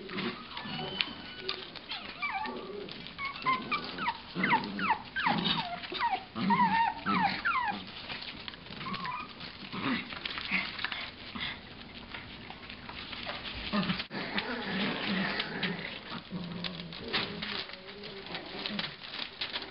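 Chug puppies (Chihuahua–pug mixes) making short, high, falling squeaks and whines, bunched in the first half, over many small clicks.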